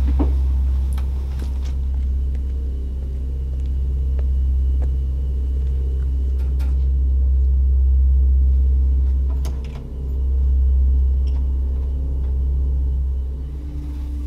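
A loud, steady deep rumbling drone with faint held tones above it, dipping briefly about ten seconds in.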